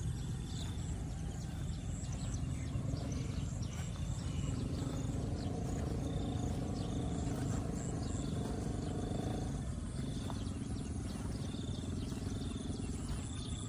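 Wind buffeting the microphone in open paddy fields, heard as a steady low rumble. Short high chirps repeat about once a second, and a steady pitched drone comes in around the middle and stops after about five seconds.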